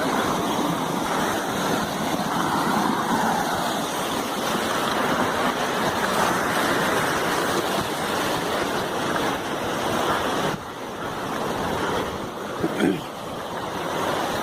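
Steady rushing of water, likely a mountain stream beside the trail. A brief pitched call cuts in about 13 seconds in.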